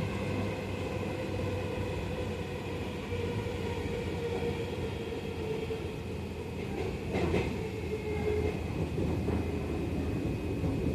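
Seibu 30000 series electric train running: wheels on the rails under a steady rumble, with a motor whine that drops slightly in pitch as it slows toward the terminus, and a brief screech about seven seconds in.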